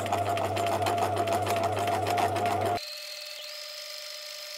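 Bernina 1008 sewing machine running at speed, sewing a short-length universal stitch through denim, with a rapid, even needle clatter over a low motor hum. It stops abruptly about three seconds in, leaving only a faint steady high whine.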